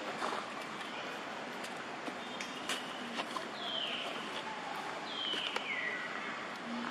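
Two high calls, each falling in pitch, about a second and a half apart, over a steady outdoor hiss with a few light clicks.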